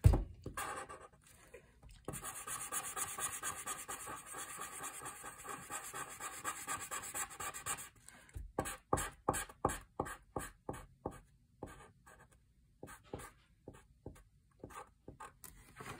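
Red felt-tip marker scribbling on paper, colouring in an area: rapid back-and-forth strokes run together for several seconds, then give way to separate short strokes about twice a second.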